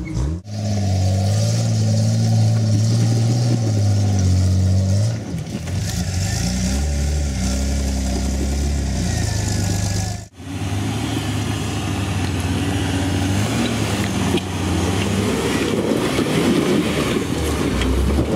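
Jeep Wrangler engines running and revving under load as they crawl up rock ledges, the pitch rising and falling with the throttle. The sound breaks off suddenly twice, about half a second and ten seconds in.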